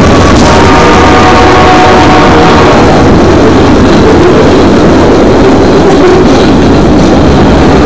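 Freight cars of a Union Pacific manifest train rolling past close by: a loud, steady rumble and clatter of wheels on rail. A set of steady tones left from the departing locomotives fades out over the first three seconds.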